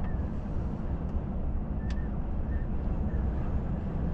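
Volvo FH truck cruising on a motorway at about 80 km/h, heard inside the cab: a steady low drone of engine and road noise.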